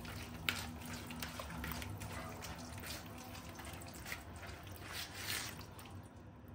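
Faint, irregular wet squishing and smacking as a hand squeezes and mixes soft margarine, oil, yogurt and egg together in a bowl, with one sharper smack about half a second in.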